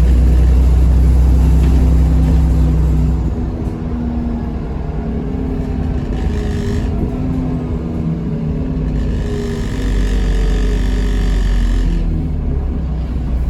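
Diesel engine of an ADL Enviro400 double-decker bus on a Dennis Trident 2 chassis, heard from on board. The engine pulls loudly for about three seconds, then eases off, and the bus runs on more quietly.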